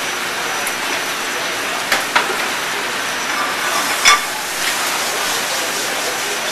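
Diced andouille sausage sizzling in hot olive oil in a sauté pan on a gas range, a steady hiss. A few sharp knocks come at about two seconds and four seconds in.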